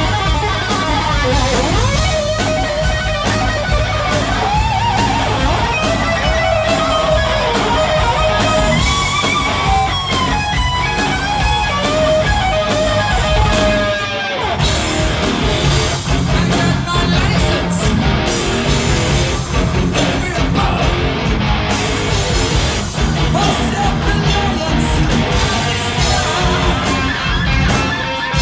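Live heavy metal band playing loud, heard from within the crowd: a lead electric guitar plays a melody full of string bends over drums and bass. About halfway through, the low end drops out for a moment and the band goes into a new section.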